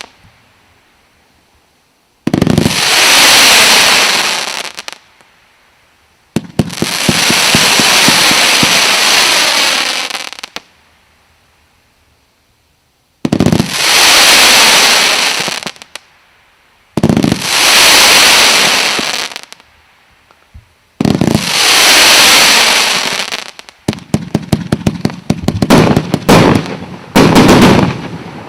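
Fireworks going off in five separate bursts, each a few seconds of loud hissing, crackling noise that starts suddenly, with quiet gaps between. In the last few seconds comes a rapid run of sharp cracks and bangs.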